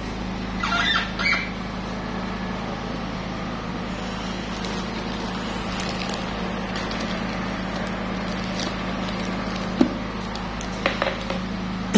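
Steady background hum of room noise, with a brief rustle about a second in and a sharp click near the end.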